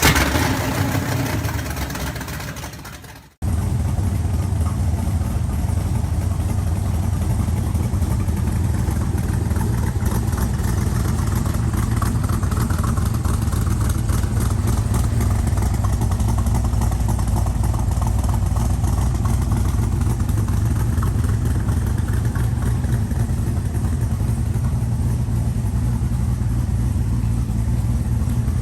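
Cobra kit car engine running: a louder stretch fades out over the first three seconds and stops abruptly, then the engine idles steadily with a deep, even drone.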